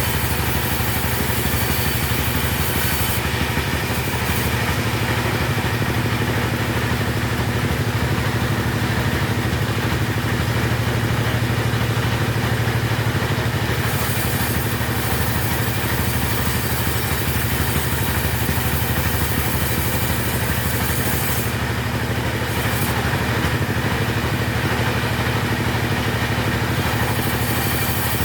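Two-stroke chainsaw engine running steadily, with a constant low engine note; its higher hiss thins out for two long stretches.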